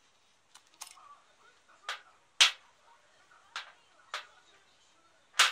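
Handling clatter from a plastic battery checker and an AA battery: about seven sharp clicks and knocks, the loudest about two and a half seconds in and near the end.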